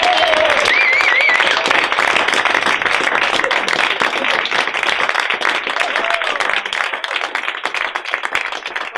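Small audience applauding, dying away gradually over the last few seconds.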